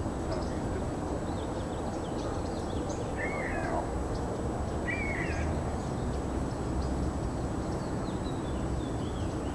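Outdoor lakeside ambience: a steady low rumble and hiss, with a bird giving two short looping calls about three and five seconds in and faint high chirps of small birds scattered throughout.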